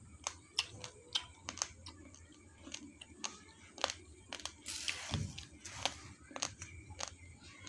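Uncooked basmati rice grains being crunched between the teeth, with sharp irregular cracks a few times a second and a longer rustling noise about five seconds in.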